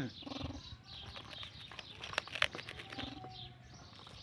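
A plastic food wrapper crinkling as it is handled, with two sharp snaps a little after two seconds in, over faint bird chirps. A short voice sound comes right at the start.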